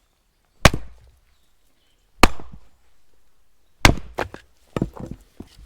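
A splitting maul striking a log three times, about a second and a half apart, each a sharp woody crack, followed by several lighter knocks.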